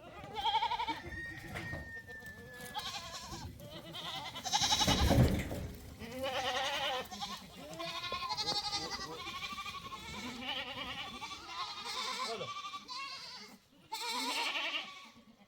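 Goats bleating again and again, several calls overlapping, with one brief loud burst of noise about five seconds in.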